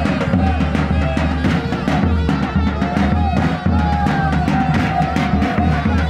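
Davul and zurna playing a folk dance tune: the big double-headed drum beating a steady rhythm under the zurna's shrill, ornamented melody.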